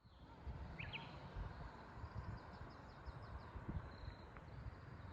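Quiet outdoor ambience: a low wind rumble on the microphone, with a couple of faint bird chirps about a second in and a thin, high, steady insect trill.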